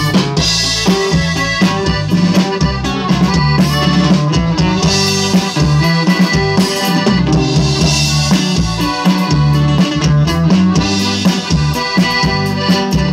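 Live norteño-style band playing: button accordion carrying the melody over guitar, bass and a drum kit with steady kick and snare, amplified through a PA.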